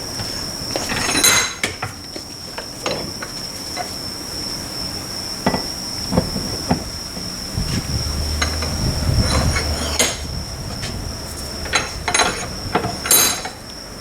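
Metal clinks and knocks of tools and steel differential parts being handled during a differential teardown, with a few sharp ringing clinks, over a steady high-pitched whine.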